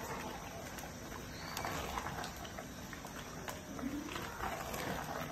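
Wooden spoon stirring thick beans porridge in a large metal pot: low squelching and scraping, with a few light knocks against the pot.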